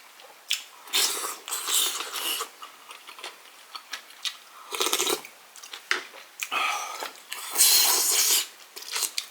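Close-miked eating noises from a bowl of tteokguk, Korean rice cake soup: mouth sounds of chewing with small clicks. Three louder, noisy mouth sounds of about a second each come about a second in, in the middle and near the end.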